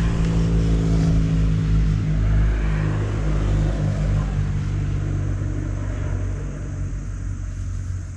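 Motorcycle engine running with a low, steady note that fades over the last couple of seconds.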